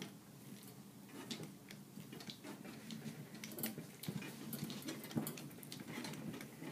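Tubing cutter being turned around the copper sensing bulb of a TXV to cut it open: faint, irregular clicks and scrapes of the cutter wheel and tool.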